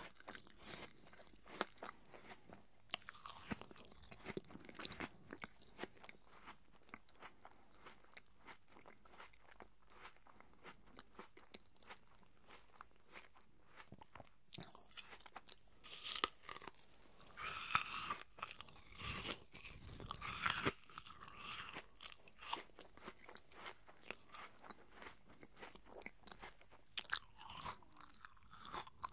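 Close-miked chewing of crisp apple pieces: a steady run of small wet crunches and mouth clicks. The crunching grows louder and busier about two-thirds of the way through and again near the end.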